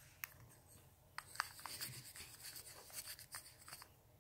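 A makeup brush rubbing and scratching in an eyeshadow compact, with small clicks from the compact. A light click comes first, then about three seconds of scratchy brushing.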